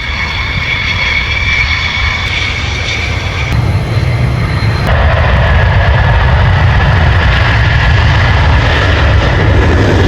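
Jet aircraft engines, a deep rumble growing steadily louder as the jets approach.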